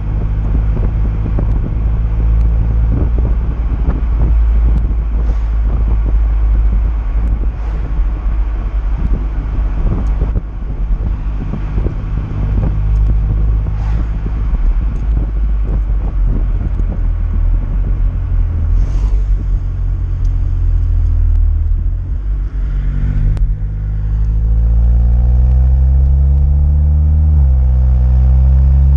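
Volkswagen Golf 7 GTI Clubsport's turbocharged 2.0-litre four-cylinder heard from the rear through a Friedrich Motorsport 76 mm cat-back exhaust with front silencer, while driving. It holds a steady cruising drone under road and wind noise, then about three-quarters in it accelerates with revs rising. The revs drop quickly at an upshift near the end and climb again.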